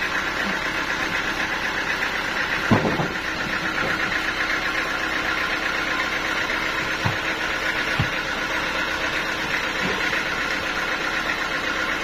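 Band sawmill machinery running steadily without cutting, with a few dull knocks as a heavy teak log is rolled and shifted onto the carriage, the loudest about three seconds in.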